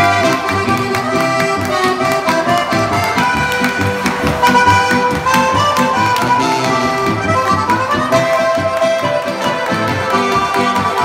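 Live Oberkrainer-style folk band playing: accordion and brass carry the tune over guitar and bass.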